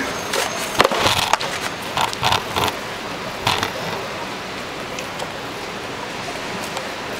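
A quick run of sharp clicks and knocks over the first few seconds, then steady, even street noise.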